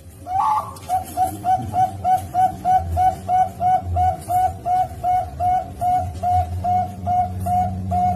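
Zebra dove (Bangkok perkutut) cooing: a louder opening note, then a fast, even run of short cooing notes, about three and a half a second, all at one pitch.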